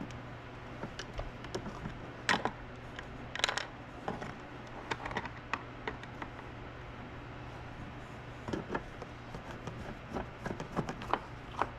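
Irregular clicks, taps and light scrapes of plastic trim pieces and a hand tool being handled and fitted as a Jeep Grand Cherokee door panel is put back together, over a steady low hum.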